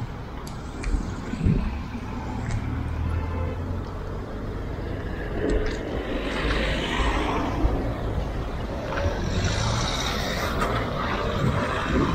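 Road traffic: cars driving through an intersection, a steady rumble of engines and tyres that swells as vehicles pass, around the middle and again later.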